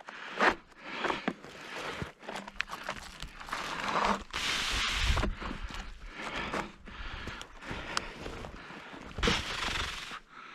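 Irregular crunching and scraping of footsteps and brush as someone moves through the woods, with a longer, louder scrape about four seconds in.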